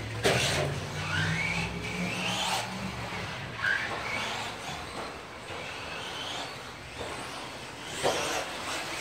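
Electric RC stadium trucks racing on a dirt track, their motors whining and rising in pitch as they accelerate out of corners, several times over.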